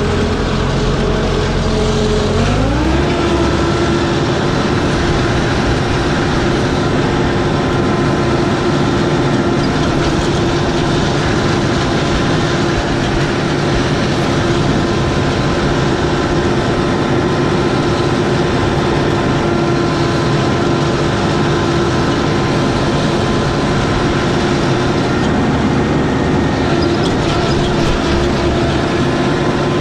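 Toro Groundsmaster 7210 zero-turn mower's engine running, throttled up about two seconds in, then running steadily at the higher speed.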